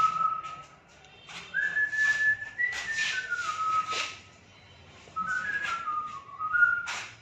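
A person whistling a slow tune in three phrases, each stepping down in pitch, with short pauses between them. A few short knocks sound in between, the loudest near the end.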